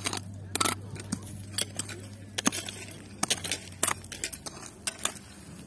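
Irregular sharp crunches and clinks of stones in hard, stony soil, with a steady low hum that fades out about four seconds in.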